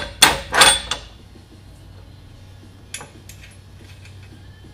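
Steel parts of a hydraulic cylinder and the Roller Tamer tool holding it clattering and scraping against each other as they are handled: a few quick scrapes in the first second, then a few light clicks about three seconds in.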